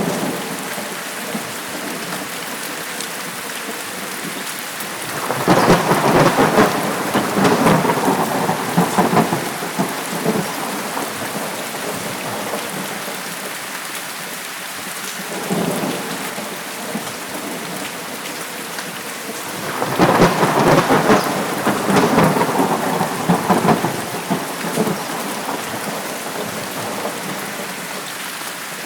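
Steady heavy rain with rolls of thunder: two long crackling rumbles, one about five seconds in and another about twenty seconds in, each lasting several seconds, with a fainter rumble between them.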